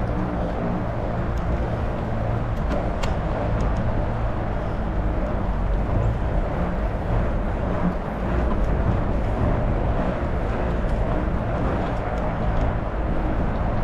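Wind and rolling noise from a moving Trek Farley 9.6 fat-tyre bike: a steady rush with a low hum, and a few faint ticks.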